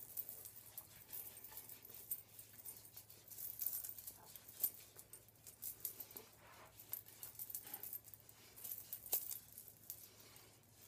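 Bangle bracelets clinking and jangling faintly on a moving wrist, in many small irregular clicks, with soft rubbing of a makeup remover cloth wiped over the face.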